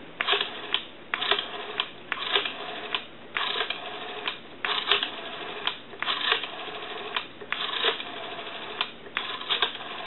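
Rotary dial of a Western Electric 202 telephone being dialled through a series of digits: each time the finger winds the dial round and lets go, it spins back with a quick run of clicks as it pulses out the number. The dial has been cleaned, oiled and adjusted.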